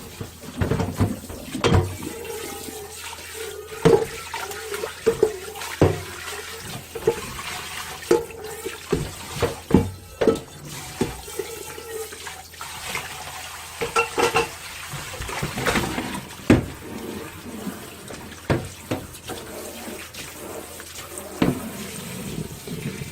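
Washing dishes at a kitchen sink: water running from the tap, with irregular clinks and knocks of dishes being handled.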